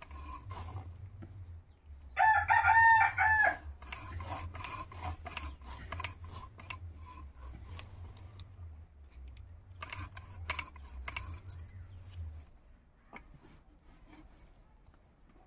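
Snake fish being scraped along an upright foot-held boti blade: repeated short rasping strokes. A rooster crows loudly over it about two seconds in, lasting about a second and a half.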